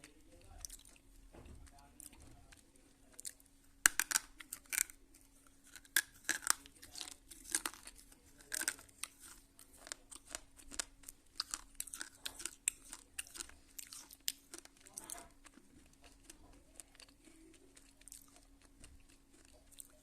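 A person biting and chewing slate pencils close to the microphone: a sharp snapping bite about four seconds in, then a run of crisp crunching chews that thins out after about fifteen seconds, over a faint steady hum.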